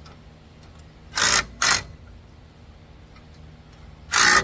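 Impact wrench fired in two pairs of short bursts, one pair about a second in and another near the end.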